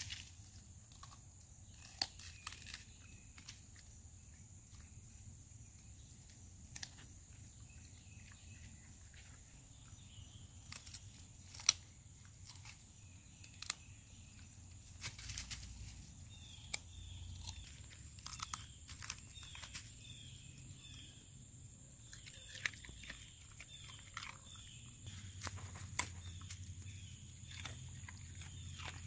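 A coyote chewing raw broccoli: irregular crunches and snaps as it bites off pieces, the loudest about twelve seconds in.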